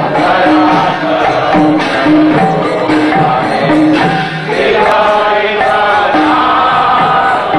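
Devotional group singing (kirtan): several voices singing together over a steady rhythmic percussion beat.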